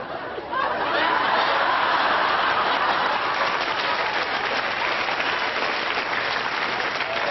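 Audience applauding, with some laughter in the first second or so.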